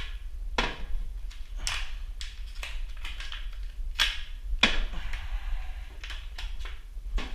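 Cabinet knobs and hardware clacking as they are set down and knocked together: irregular sharp clicks, about eight of them, a few ringing briefly.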